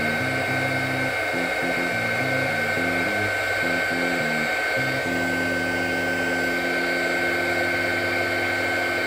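Small hobby hot air gun running steadily, shrinking heat-shrink tubing onto a soldered wire joint. It gives a constant fan whine with a rush of air. Background music with low shifting notes plays underneath.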